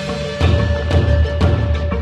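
Background music: a steady held note with heavy drum hits about once a second.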